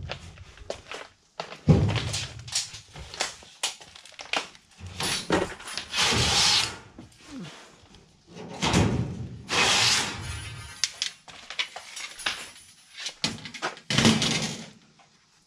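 Galvanized sheet-metal ductwork being handled and worked by hand: irregular thunks and knocks of thin metal, with a couple of longer rasping scrapes midway.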